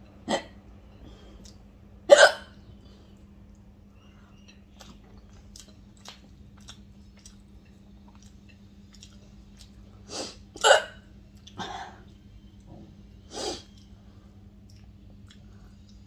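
A woman hiccuping repeatedly while eating: about six short, sudden hiccups at uneven gaps, the loudest about two seconds in and a cluster near the eleven-second mark. The hiccups came on while she was eating dal and rice.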